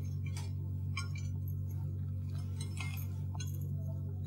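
A few faint, light clinks and jingles of glass while crushed nuts are sprinkled from a small glass bowl, over a steady low hum.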